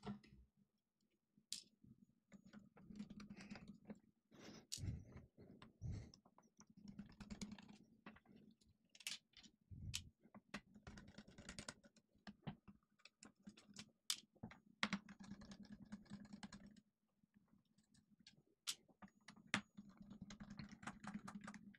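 Faint, scattered clicks and short scrapes of a small Phillips screwdriver working the back-panel screws out of an HP Pavilion Gaming laptop, with small screws being handled and set down.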